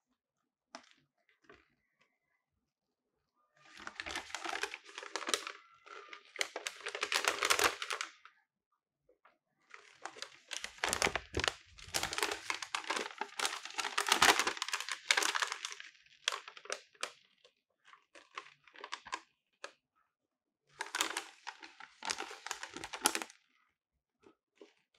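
Large fold-out paper user manual being unfolded and handled: paper rustling and crinkling in three stretches, about four, six and two seconds long, with quiet gaps and a few small ticks between.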